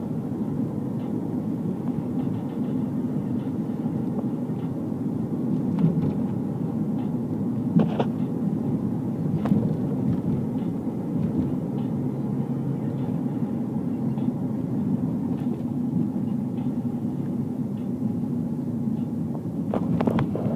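Road and engine noise inside a moving car's cabin: a steady low rumble, with a couple of brief clicks about eight and nine and a half seconds in.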